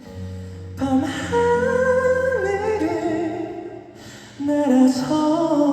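Live ballad: a male singer holds long sung notes over sustained instrumental accompaniment.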